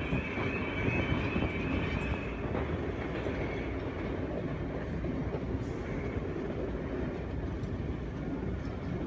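Class 101 diesel multiple unit running, heard from on board: a steady low running noise from its underfloor diesel engines and wheels on the rails. A high steady tone fades out about two and a half seconds in.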